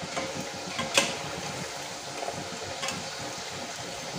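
Soya chunks deep-frying in hot oil in a kadai, a steady sizzle, with the slotted spoon turning them and knocking sharply against the pan about a second in, and more lightly near the three-second mark.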